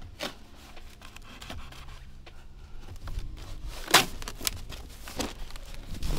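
Large cardboard shipping box being cut and torn open by hand: scraping and rubbing of cardboard with a few sharp tearing strokes, the loudest about four seconds in.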